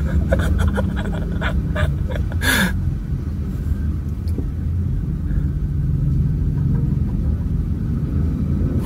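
Low, steady vehicle rumble, with a few sharp clicks in the first couple of seconds and a short hiss about two and a half seconds in.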